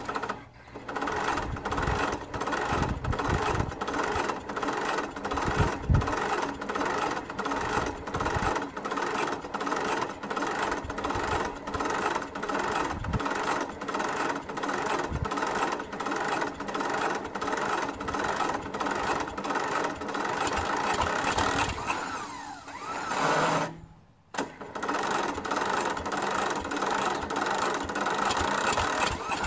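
Ride-on lawnmower engine being cranked on a cold start by its electric starter, turning over with a steady whine and about two beats a second without catching. After a long crank the starter winds down with falling pitch, stops for about a second, then cranks again. The engine is reluctant to start cold.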